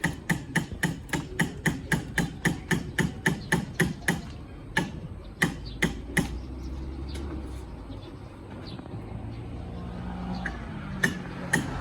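Handsaw cutting wood with quick, even strokes, about three and a half a second, stopping about four seconds in. After that come a few separate sharp knocks and a faint low hum.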